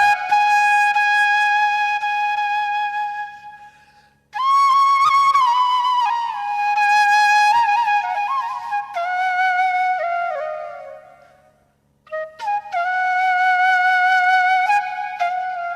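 Background music: a solo flute playing a slow melody of long held notes, in three phrases, each fading out before the next starts.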